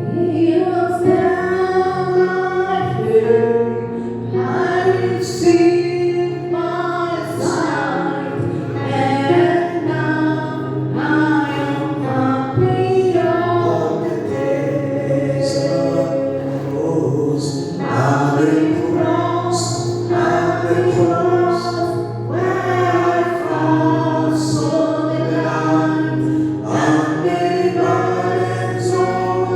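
Gospel worship song: a choir singing over steady instrumental accompaniment.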